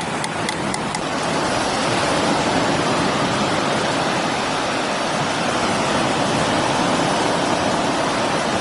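Ocean surf washing onto the beach in high wind: a steady rush with no breaks, with a few faint ticks in the first second.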